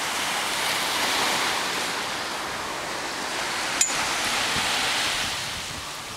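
Small waves breaking and washing up a sandy beach, a steady rush of surf, with one sharp click about four seconds in.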